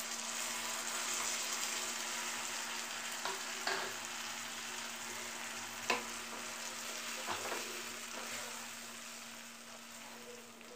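Tamarind juice poured into onions frying in hot oil in a wok, the oil sizzling up as it goes in and settling into a steady sizzle. A wooden spatula stirs the mixture, knocking lightly on the pan a few times.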